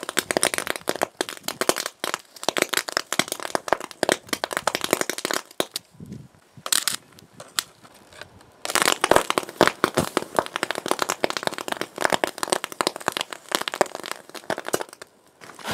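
High-current DC arc from four 12 V lead-acid batteries in series (about 48 V), shorted through a copper rod into a computer motherboard: rapid, dense crackling and snapping as the arc burns through the board. It drops back for about three seconds in the middle, with one short burst, then crackles on again until it stops shortly before the end.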